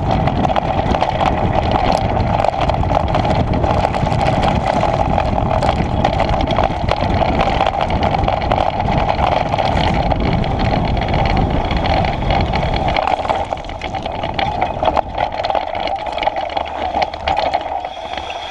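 Mountain bike rolling fast down a loose gravel and dirt track: knobby tyre crunching over stones, with steady rushing noise and frequent small rattles. The low rumble drops away about two-thirds of the way through and the noise gets lighter.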